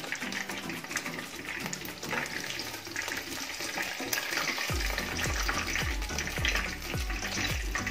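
Battered corn dogs deep-frying in hot oil, a steady sizzle full of small crackles and pops. About two thirds of the way in, background music with a steady low beat comes in under the sizzling.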